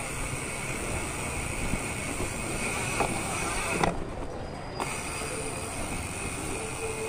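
Steady rumble of wind and road noise during a mountain-bike ride, with a high steady buzz that cuts out for about a second near the middle. A short falling squeal sounds just as the buzz stops.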